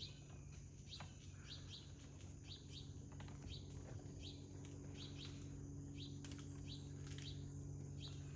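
Birds chirping repeatedly: short high chirps, often in quick pairs, every half second to a second, over a steady low hum.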